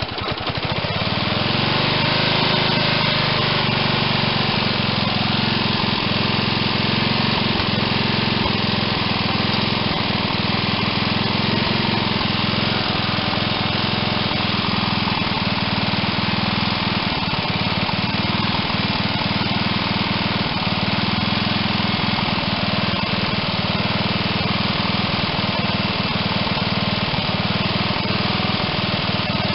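1979 John Deere 111's Briggs & Stratton 11 hp single-cylinder engine picking up speed in the first couple of seconds, then running steadily. The engine will not settle to idle and runs away, which the owner puts down to a problem in the governor assembly.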